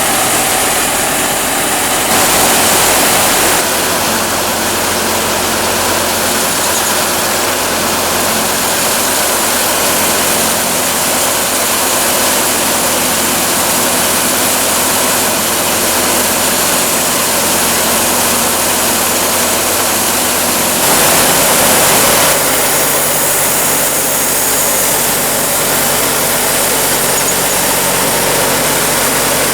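Sawmill machinery running steadily and loudly, engine hum under a dense mechanical noise, getting briefly louder twice.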